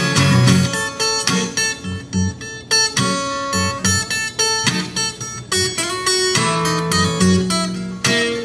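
Acoustic blues guitar instrumental break on a capoed 12-fret acoustic guitar: picked treble notes over a bass line, with no singing.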